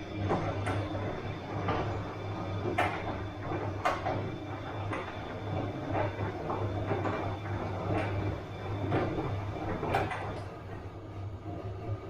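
Bosch front-loading washing machine running a wash: a steady low motor hum under the irregular thumps, knocks and sloshing of laundry and water tumbling in the turning drum, with a few louder knocks.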